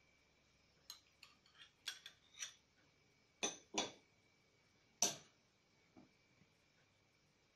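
Metal spoons clinking and tapping against a frying pan and small glass bowls as ingredients are spooned in and scraped off: a scattered series of sharp clinks, the loudest about five seconds in.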